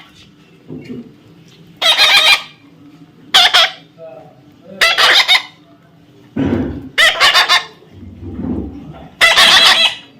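Parrot screeching: about five loud, harsh calls, each about half a second long, coming every second and a half to two seconds.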